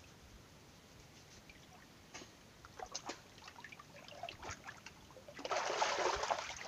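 A person bathing in a creek: scattered small splashes and trickling water, then a louder rush of splashing water starting about five and a half seconds in.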